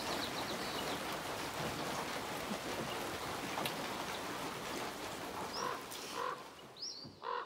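Steady rain falling with an even hiss, fading out near the end. Over it, a few short high chirps come near the end.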